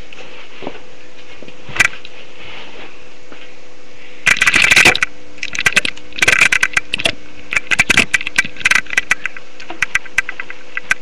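Handling noise close to the microphone: clusters of crackly clicks and scrapes from about four seconds in, over a steady electrical hum.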